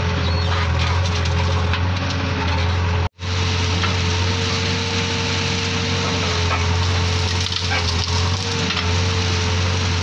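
JCB 3DX backhoe loader's diesel engine running steadily under work, with a low drone and a thin steady whine over it. The sound cuts out for an instant about three seconds in.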